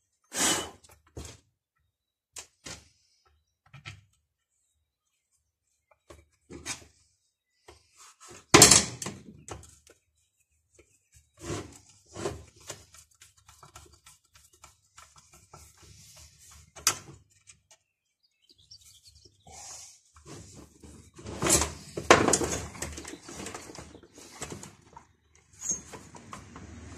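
Scattered metal clicks and knocks of hand tools and small parts as a chainsaw's anti-vibration mount is unbolted. The loudest knock comes about eight and a half seconds in, with a denser run of knocks near the end as the saw is handled.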